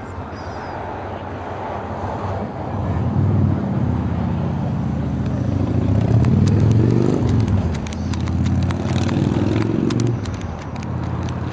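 An engine running close by, its pitch rising and then falling around the middle, with faint clicking over it.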